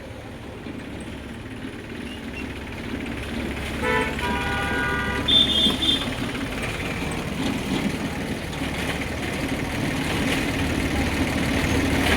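Diesel engine of a JCB 3DX backhoe loader running steadily and slowly getting louder. About four seconds in a vehicle horn sounds for about a second and a half, followed by a short high beep.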